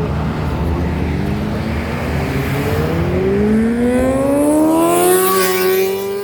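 A car's engine accelerating hard on a fly-by, its note climbing steadily in pitch as it revs up through a gear.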